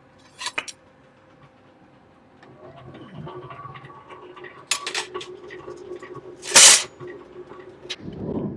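A workshop machine starts up and runs with a steady hum. Metal clicks and knocks sound over it, and there is one loud, short hiss past the middle, while a knife blank is cut.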